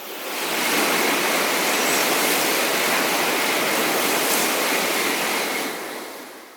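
Shinkansen bullet train passing at speed: a rushing noise that swells within about a second, holds steady for about five seconds, then dies away near the end.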